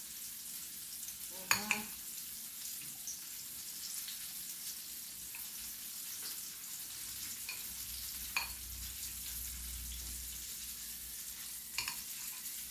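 Chicken frying in hot oil: a steady sizzle, with three short knocks scattered through it.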